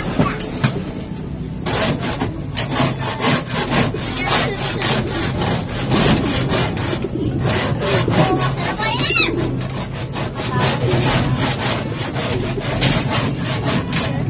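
Handling noise from a handheld phone microphone rubbed against hair and clothing: continuous rapid scratching and rubbing, many scrapes a second.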